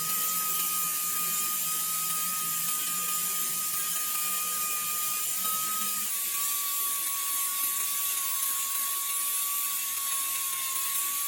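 A workshop machine running steadily: a constant high whine over a hiss, its pitch dropping slightly about six seconds in.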